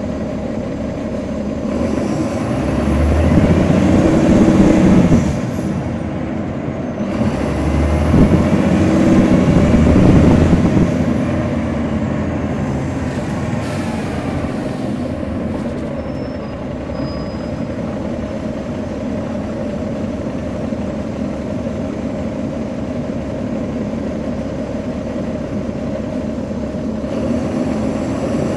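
Caterpillar C13 ACERT diesel engine of a 2009 NABI 40-SFW transit bus, heard from on board. It pulls harder twice, in the first few seconds and again around ten seconds in, as the bus accelerates, then runs steadily at lower revs.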